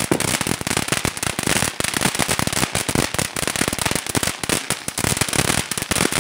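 Ground firework spraying white sparks, crackling with a rapid, dense stream of sharp pops, many a second.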